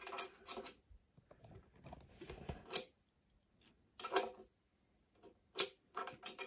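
Scattered short clicks and knocks of handling, a few sharp ones standing out among quiet gaps.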